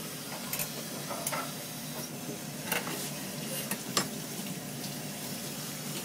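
Busy restaurant kitchen noise: a steady hiss with a few sharp clinks of crockery, the loudest about three and four seconds in.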